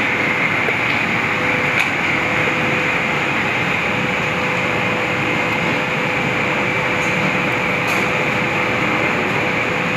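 Steady rushing noise of a commercial kitchen's extraction ventilation, with a constant low hum and a higher steady whine in it. A few faint clicks come through it, about two seconds in and near the end.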